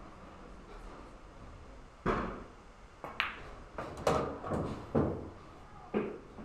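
Pool cue striking the cue ball about two seconds in, followed by a run of sharp clacks and knocks of pool balls over the next few seconds, each with a short ring.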